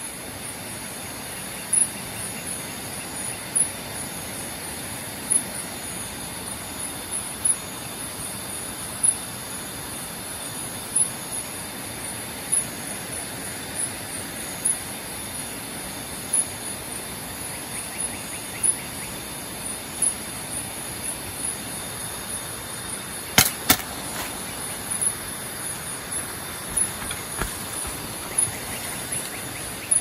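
Night insects keep up a steady high-pitched chirring, with a louder chirp about every two seconds. About two-thirds of the way through, two sharp clicks come less than half a second apart: a crossbow being shot.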